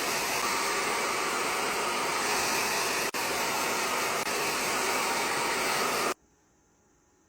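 Handheld hair dryer blowing with a steady rushing noise while drying a wet dog, then cutting off suddenly about six seconds in.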